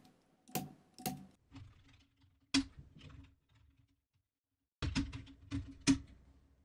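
Computer keyboard keys pressed one at a time: about ten separate clicks, with a pause of about a second and a half after the middle.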